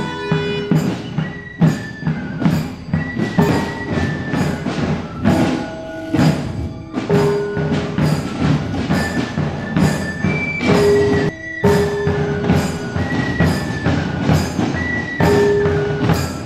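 Javanese palace-guard marching band playing: a flute carries a melody of held notes over steady drum beats and the strokes of small hand-held gongs.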